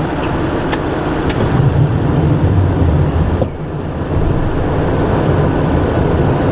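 Steady in-flight noise inside a Cessna Citation jet's cockpit: air rushing past and the turbofan engines' low drone. There are two light clicks about half a second apart around a second in, and a brief drop in level about halfway through.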